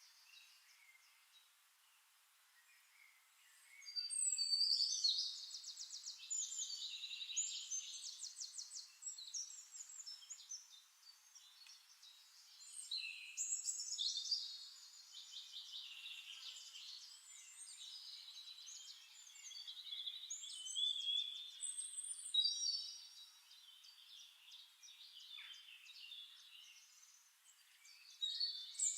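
Songbirds singing: repeated phrases of high, fast trills and chirps, starting about four seconds in and returning every few seconds with short pauses.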